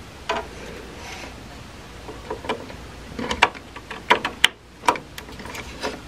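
Small plastic-and-metal clicks and ticks of a Samsung M.2 NVMe SSD being seated into its motherboard M.2 slot: about ten sharp, separate ticks, bunched in the second half.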